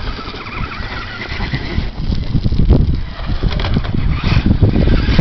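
Traxxas E-Maxx electric RC monster truck driving over a loose gravel pile: its electric motors whine and its tyres scrabble over the stones. The sound gets louder from about two seconds in.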